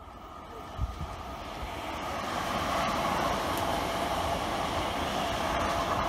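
Francilien (Z50000) electric multiple unit approaching and passing at speed: the rush of steel wheels on rail builds steadily over the first few seconds, then holds loud and even as the cars go by.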